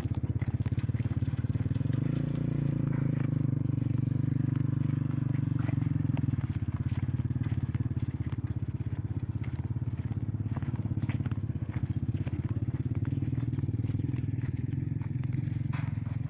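Vehicle engine running steadily with a rapid low pulsing. It grows louder about two seconds in, as if picking up speed, and stops abruptly at the end.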